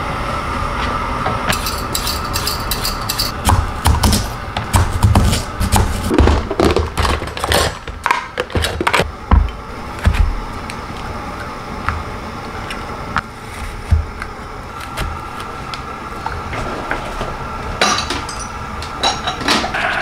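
Knife cutting a carrot on a plastic cutting board: irregular sharp knocks and clatter through the first half, and another short run of knocks near the end, over a steady background hum.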